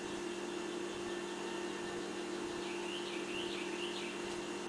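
Quiet room tone: a steady low hum, with a faint run of short bird chirps about three seconds in. The hand-turned bracelet pin press makes no clear sound of its own.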